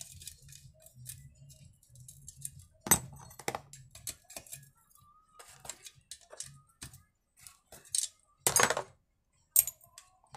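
Metal hand tools clinking and knocking as they are picked up and set down on a workbench: scattered sharp clicks, the loudest about three seconds in, and a brief rattle followed by a click near the end.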